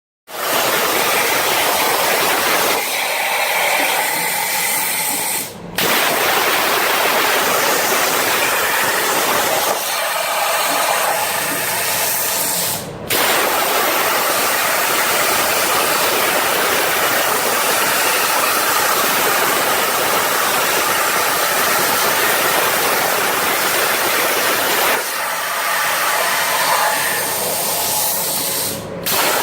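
CNC machine running with a loud, steady hissing machining noise, broken by abrupt cuts about 6, 13 and 29 seconds in.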